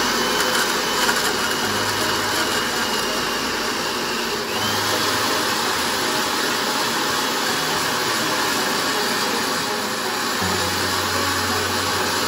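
Countertop blender with a glass jar running steadily, pureeing chunks of apple, banana and avocado into a thick smoothie, with a short dip in its sound about a third of the way through.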